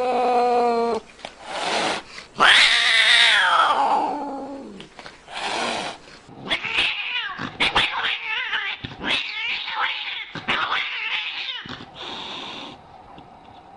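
Domestic cats yowling and meowing. There is one long, loud yowl that falls in pitch about two and a half seconds in, then a run of shorter cries with clicks among them.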